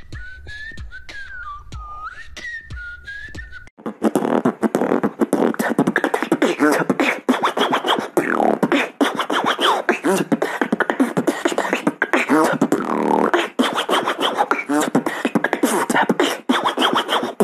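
A short whistled tune over a low hum, then from about four seconds in a beatboxer doing vocal scratching: dense mouth clicks and fast rising and falling pitch sweeps that imitate a DJ scratching a vinyl record on a turntable.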